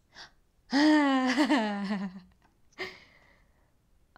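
A woman's long wordless exclamation of delight, wavering and then falling in pitch, followed by a short breath.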